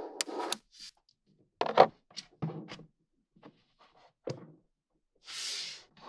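Small magnetic balls clicking and scraping against each other and the work surface, in short separate bursts with pauses between them. The loudest burst comes near two seconds in, and a sharp click a little after four seconds.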